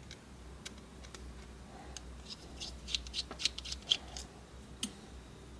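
Small precision screwdriver turning tiny screws out of a metal chassis plate: a run of light clicks and scrapes, busiest through the middle, with the sharpest click just before the four-second mark.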